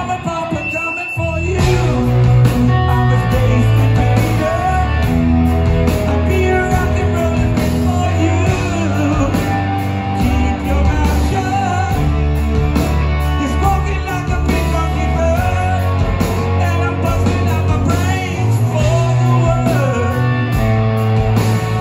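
Live rock band playing: electric guitars, bass and drums with a singer, heard from the audience. The band drops out briefly about a second in, then comes back in at full volume.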